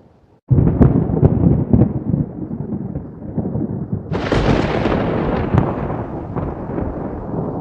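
Loud, deep rumbling with sharp crackles and rattles, starting abruptly about half a second in; about four seconds in, a loud hiss joins it.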